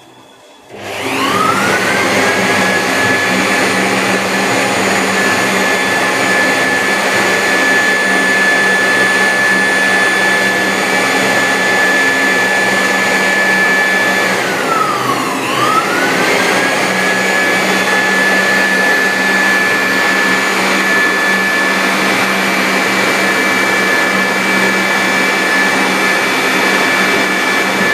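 A high-speed electric motor spins up about a second in and runs with a steady high whine over dense noise. About halfway through it bogs down briefly, its pitch dropping sharply, then spins back up.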